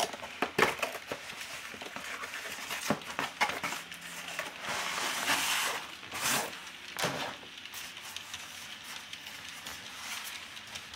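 Styrofoam packing insert being pulled out of a cardboard box: scattered clicks and knocks, with a longer stretch of rubbing and scraping about four to six seconds in.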